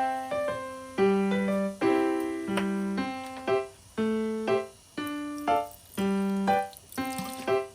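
Background piano music: a slow melody of separate notes, each fading after it is struck, over lower held notes.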